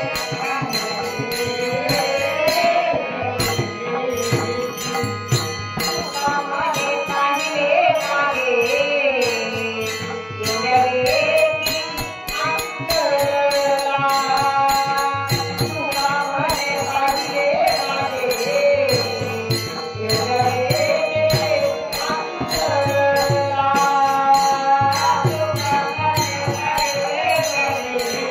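Devotional bhajan singing of a Marathi gaulan: a woman's voice leads a winding, ornamented melody over steady hand cymbals and a drum beat.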